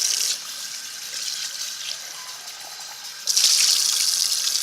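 Running water rinsing a freshly plucked chicken carcass, a steady spraying hiss. It drops off about half a second in and comes back stronger about three seconds in.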